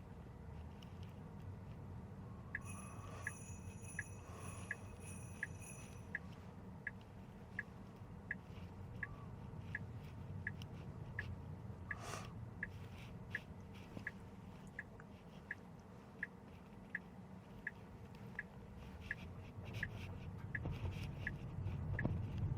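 Tesla's turn-signal indicator ticking steadily, about one and a half ticks a second, over low road rumble inside the car's cabin. A repeating electronic chime sounds for a few seconds near the start, and there is a single thump about halfway through.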